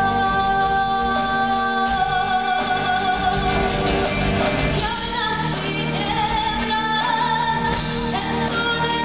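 Live rock band playing, with a voice holding long, wavering sung notes over the instruments; the melody shifts about five seconds in.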